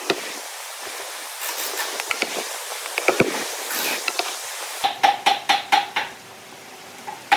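Scattered knocks and taps over a steady hiss. About five seconds in, music with a steady drum beat starts.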